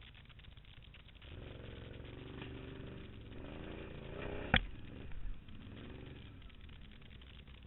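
Off-road vehicle engine running, its pitch climbing over a few seconds, then a single sharp knock about four and a half seconds in.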